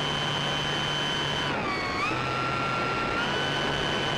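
Durafly Tundra RC plane's electric motor and propeller whining in flight, picked up by the onboard camera with a rush of air. The pitch dips about one and a half seconds in as the motor slows, climbs back half a second later, and steps up again near the end.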